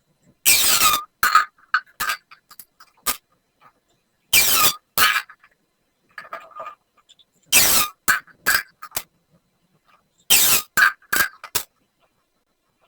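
Plastic pop tubes being stretched and squashed, their ridged sections snapping over in a rattling burst of pops about every three seconds, each followed by a few single clicks.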